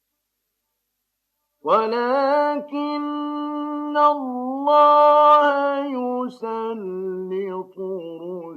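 Complete silence for about a second and a half, then a male reciter chanting the Quran in the melodic tajweed style, holding long notes that waver and bend in ornaments, with short breaks between phrases.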